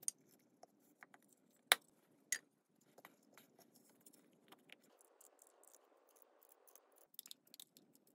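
Scattered light clicks and clinks of metal parts being handled as plates are fitted into their cylinders, with two sharper knocks about two seconds in.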